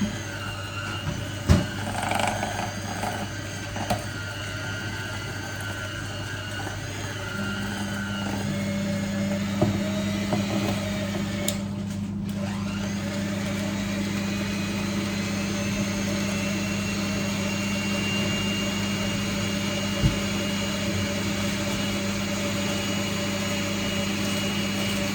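A small electric kitchen appliance motor switches on about seven seconds in and runs steadily, giving a hum with a thin high whine. A few light knocks come before it starts.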